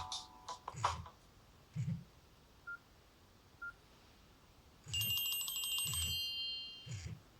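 Nokia N70 phone's speaker playing its tones: the tail of a ringtone, two short single beeps a second apart, then a bright, high-pitched synthesized alert tone of several steady notes sounding together for about two seconds. Soft low thumps recur about once a second.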